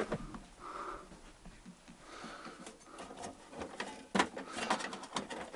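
An old metal cantilever toolbox being handled and its trays pulled open: quiet scraping, then a quick run of clicks and metallic knocks about four seconds in.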